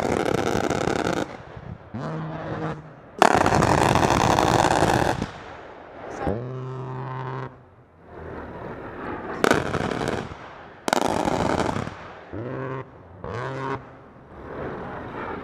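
A-10 Warthog's GAU-8 Avenger 30 mm rotary cannon firing in about eight bursts, each a deep buzzing growl lasting from half a second to two seconds.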